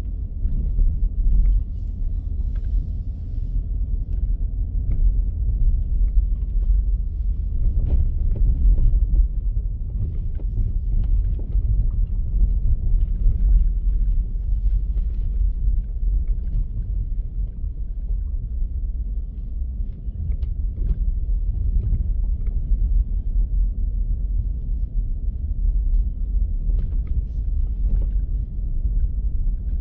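A vehicle driving slowly over a rough dirt road, heard from inside the cabin: a steady low rumble with scattered small knocks and rattles.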